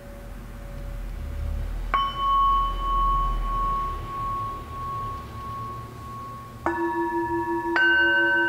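Metal singing bowls struck one at a time with a mallet. One is struck about two seconds in and rings on, slowly fading. Two more are struck near the end and ring together, the lower one with a wavering hum.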